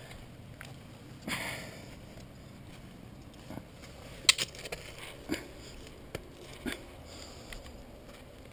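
A climber's hands and shoes scuffing and knocking on rock, a handful of sharp clicks and scrapes, the loudest about halfway through, with a short sniff-like breath about a second in.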